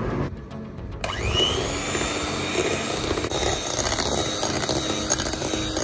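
Electric hand mixer switched on about a second in, its motor whine rising quickly and then running steadily as it whisks whipped cream.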